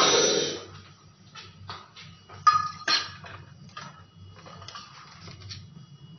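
Kitchen clatter of pans and utensils: a loud burst of noise at the start, then a few sharp knocks and clinks with a brief ring about two and a half to three seconds in, over a faint low steady hum.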